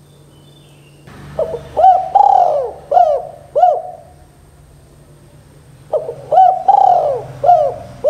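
Spotted dove cooing: two phrases of about five coos each, one starting about a second in and the other near the end. Each phrase has one longer, drawn-out coo in the middle.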